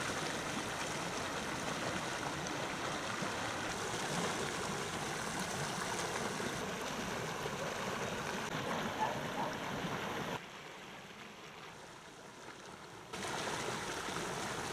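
River current flowing, a steady rush of moving water. It drops sharply quieter for a few seconds about ten seconds in, then returns.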